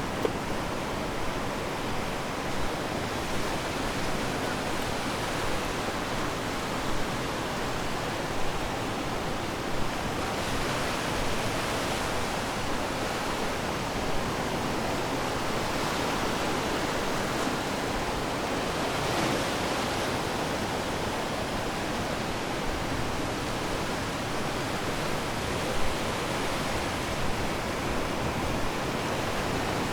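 Ocean surf: a steady wash of waves breaking on the shore, swelling louder twice.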